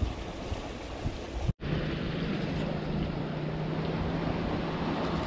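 Sea surf and wind on the microphone, with a low steady hum after a short break in the sound about one and a half seconds in.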